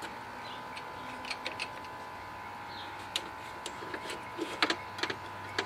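Scattered light clicks and taps from hand work on a Briggs & Stratton engine's throttle and choke linkage, a few at a time with short gaps between.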